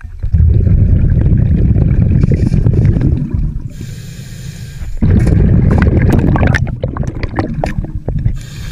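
Scuba diver breathing through a regulator, heard underwater: a long stretch of exhaled bubbles, a short hiss of inhaling just past the middle, then another long stretch of bubbles with scattered clicks. A second inhale hiss starts right at the end.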